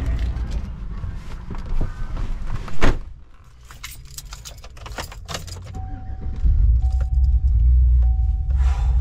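Pickup truck's engine starting and idling, heard from inside the cab, with a warning chime beeping on and off. Before it come a sharp bang and small clicks of keys and the seatbelt being buckled.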